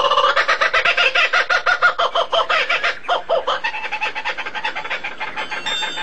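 A bird calling in a rapid series of short pitched notes, about eight a second, growing fainter after about three seconds.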